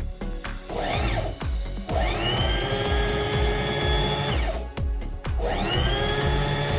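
Electric coconut scraper motor switched on and spinning up with a rising whine that settles into a steady run, then dies down and is started again near the end. It is the test run of the motor on its freshly replaced carbon brushes, and it runs.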